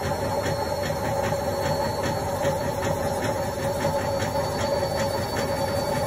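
Indesit front-loading washing machine running on a quick wash: a steady motor hum with a regular ticking about three times a second from the turning drum.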